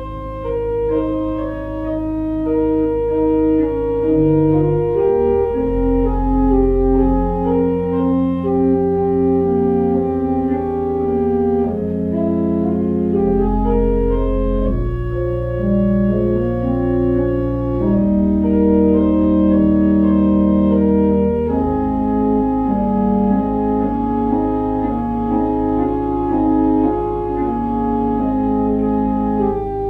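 Church organ playing slow music: sustained chords that change every second or two, with a moving melody above long-held low bass notes.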